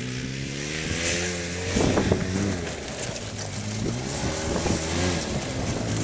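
Off-road vehicle engine revving under load in snow, its pitch climbing, easing off, then climbing again, with a steady hiss above it.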